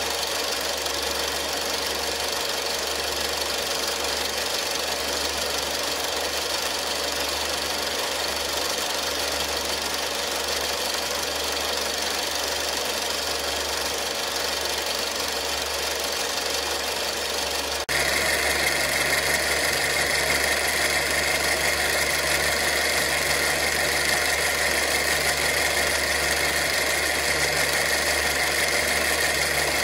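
Luch-2 8mm film projector running steadily with film threaded through it: the motor and film-advance mechanism running. About eighteen seconds in, the sound jumps abruptly louder and brighter.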